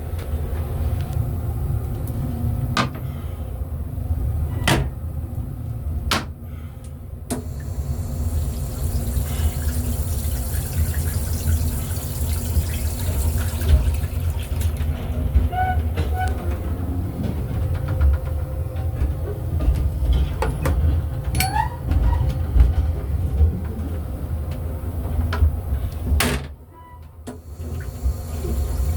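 Running noise of a Metro-North M3 electric railcar under way, heard inside its small restroom: a steady low rumble with a faint hum, broken by several sharp knocks and a couple of brief rising squeals. Near the end the noise drops away suddenly for about a second, then returns.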